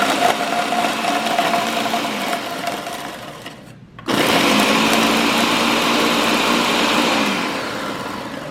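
Loud electric kitchen appliance motor grinding graham crackers into crumbs: it winds down and stops a little over three seconds in, is switched on again about half a second later, then slows and fades near the end.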